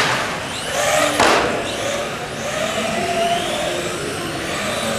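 Small recoil-start nitro RC car engines buzzing and revving as the cars race, with two loud close passes at the start and about a second in.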